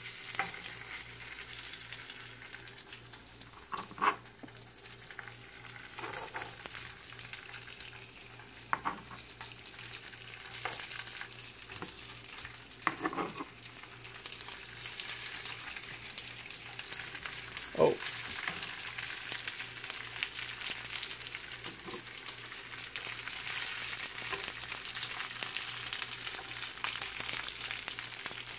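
Sesame-crusted tuna strips searing in hot oil in a nonstick frying pan, sizzling steadily and growing louder as more pieces go in. A few sharp clicks of metal tongs against the pan break through the sizzle.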